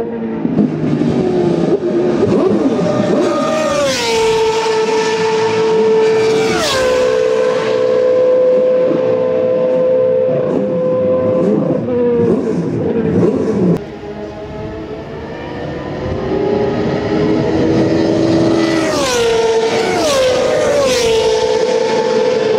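Historic single-seater racing car engines at high revs on the straight: the pitch climbs and drops in quick steps with each upshift, twice about 4 and 6.5 seconds in. The sound breaks off suddenly about 14 seconds in, then another car builds up and shifts up twice near the end.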